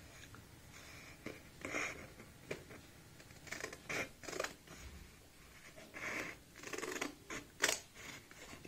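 Large tailoring shears cutting along a curved line through a stiff white sheet: short, irregular snips about one a second, the sharpest one near the end.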